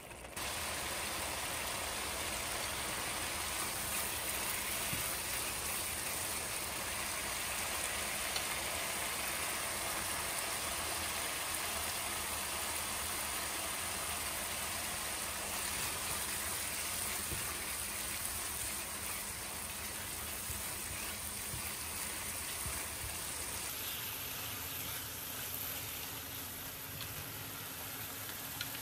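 Chicken livers in masala sizzling and bubbling in a frying pan, a steady hiss.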